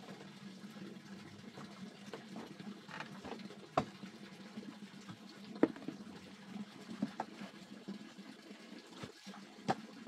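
A few sharp knocks and thumps of feet and rubber boots on a bamboo slat floor as the boots are pulled on, over a steady low background hiss.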